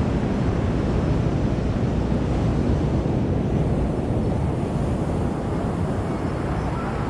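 Steady wind buffeting the microphone, mixed with the wash of surf breaking on the beach.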